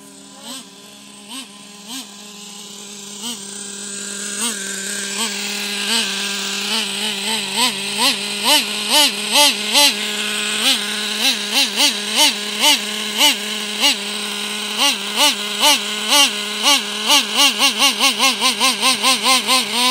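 Traxxas T-Maxx 3.3's small two-stroke nitro engine idling, with repeated throttle blips that swing the pitch up and back down. The blips come more often and the running grows louder toward the end.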